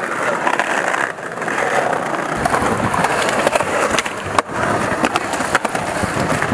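Skateboard wheels rolling over concrete and brick pavement, with a few sharp clacks of the board.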